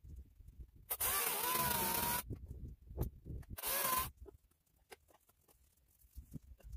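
Electric chainsaw cutting into a log in two short bursts, a longer cut of about a second followed by a brief half-second cut, its motor whine wavering in pitch under load. Faint knocks of wood between and after the cuts.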